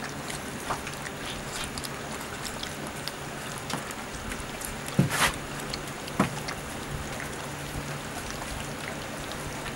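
Vizsla and Weimaraner puppies lapping and slurping puppy mush from a shallow metal pan: a steady wet smacking with scattered small clicks. Two sudden louder knocks stand out about halfway through, a second apart.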